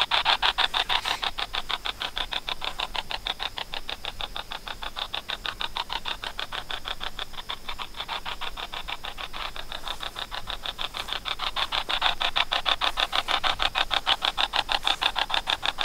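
Spirit box app on a smartphone sweeping, heard through the phone's speaker as a fast, evenly chopped hiss of many pulses a second.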